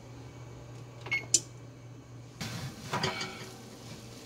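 Electric oven being opened to check baking cod: two sharp clicks a little over a second in, then the rattle and scrape of a metal baking sheet being slid out along the oven rack, over a steady low hum.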